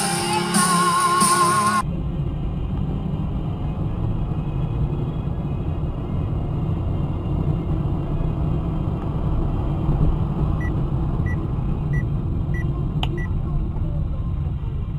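Music for a moment, then a cut to a car's steady low road and engine rumble heard from inside the cabin through a dashcam microphone. Near the end, five short high beeps come about two-thirds of a second apart.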